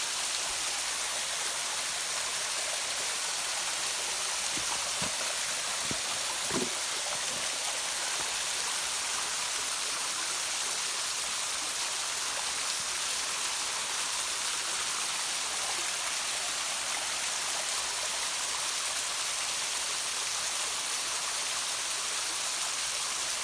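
Small waterfall with low flow: a steady rush of falling water. A few brief low thumps sound about five to seven seconds in.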